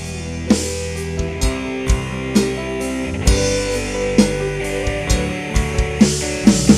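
Live band playing an instrumental intro through a PA system: sustained keyboard and guitar notes over a steady beat, with drum strokes that drop sharply in pitch.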